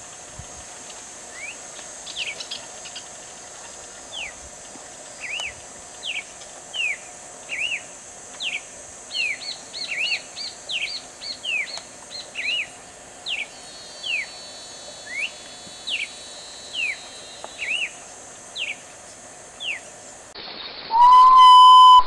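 Red-cowled cardinal (galo-de-campina) singing: a long run of short, clear whistled slurs, about one or two a second, over a steady hiss. Near the end the song cuts off and a loud, held whistle begins, the opening note of a common potoo's call.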